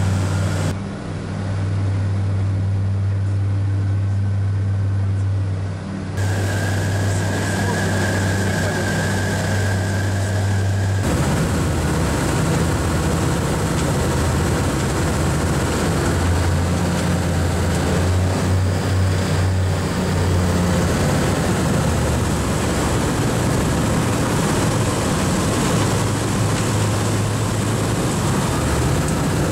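The twin Rotax 912 engines and propellers of a Che-29 light amphibian running in flight, a steady, loud drone. The sound changes abruptly a few times, and after about eleven seconds it turns rougher and less even.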